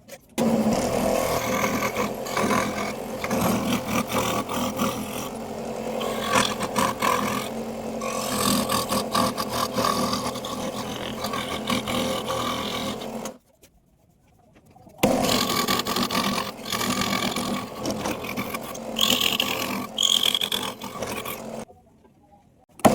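Power tool motor running with a steady whine while working wood, with scraping and knocking over it. It stops abruptly twice, once about halfway through and again near the end.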